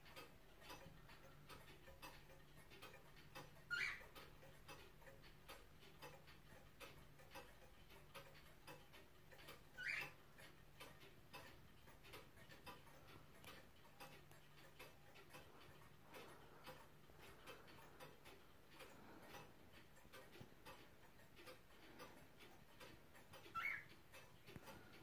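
Faint, steady ticking of an 18th-century Louis XV boulle bracket clock's pendulum movement. Three brief high squeaks, rising in pitch, stand out above it about four seconds in, ten seconds in and near the end.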